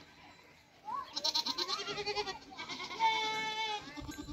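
Goats bleating: two long, wavering calls, the first about a second in and the second about three seconds in.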